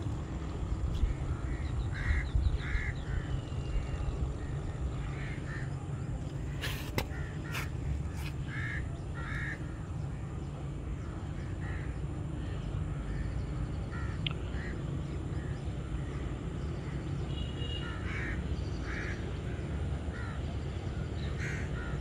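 Crows cawing again and again, in short runs of two or three calls, over a steady low rumble. A couple of sharp clicks come about seven seconds in.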